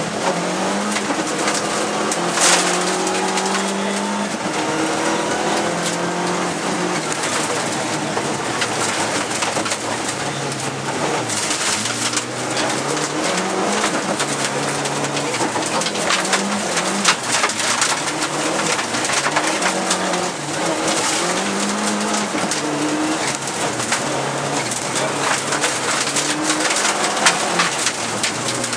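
Lancia Delta HF Integrale 16v's turbocharged 2.0-litre four-cylinder engine, heard from inside the cabin, revving up and dropping back again and again through the gear changes at full stage pace. It runs on only 1.1 bar of turbo boost. Gravel clatters and crackles off the tyres and underbody throughout.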